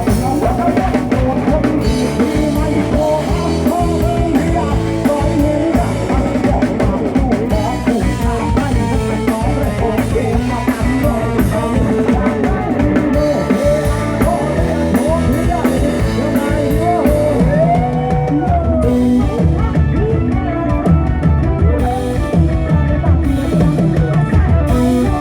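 Loud rock-style band music: drum kit and guitar with a singing voice.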